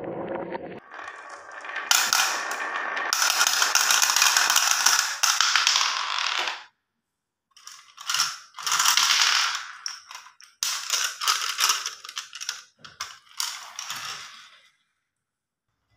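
Glass marbles finishing their roll down a wooden track, then rattling and clattering in a plastic toy dump truck's bed and clinking into a glass dish as they are tipped out. The clatter is continuous for several seconds, then comes in a few shorter bursts.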